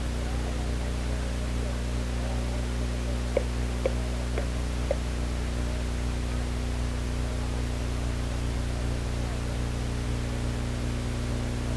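Steady electrical hum and hiss, with four short clicks about half a second apart a few seconds in.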